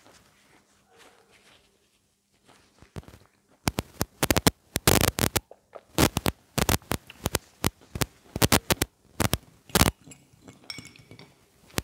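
A person biting and chewing dry chalk close to a clip-on microphone. It is quiet at first, then from about three and a half seconds in comes a quick run of sharp crunches that fades to lighter ticks near the end.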